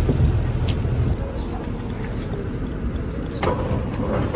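City bus engine rumbling low, loudest in the first second, over steady street noise. A single sharp clack comes about three and a half seconds in.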